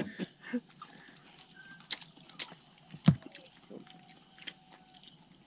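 Quiet eating sounds of several people eating rice and frog by hand from banana leaves: scattered small clicks and taps, with one louder knock on the table about three seconds in. A few faint short high tones sound in the background.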